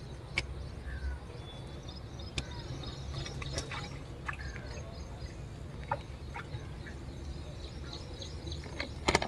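Outdoor ambience by open water: a steady low rumble with faint birds chirping now and then and scattered small clicks, then a quick cluster of louder clicks near the end.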